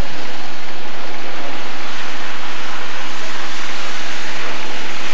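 Crowd of spectators applauding at a race finish: a loud, even noise without a break.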